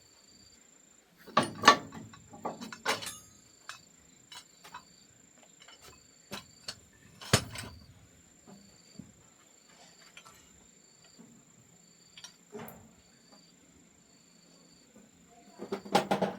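Scattered knocks and clinks of hard objects being handled, a few near the start, one sharp knock midway and a quick cluster near the end, over an insect, likely a cricket, chirping in a steady even rhythm of short high chirps.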